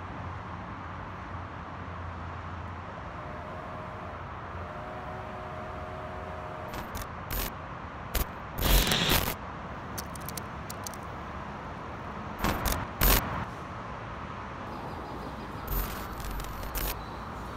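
Steady hum of road traffic from a nearby freeway. Over it come a few sharp clicks and clatters in two clusters, about halfway through and again a few seconds later.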